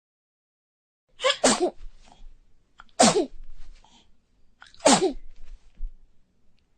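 Three loud sneezes about two seconds apart, each a sharp burst sliding down in pitch; the first comes about a second in and is a quick double burst.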